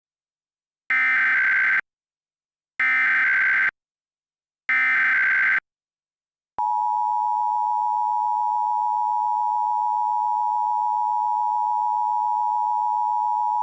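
Emergency Alert System SAME header: three short bursts of digital data tones, one after another about a second apart. About six and a half seconds in, the steady two-tone EAS attention signal begins and keeps sounding.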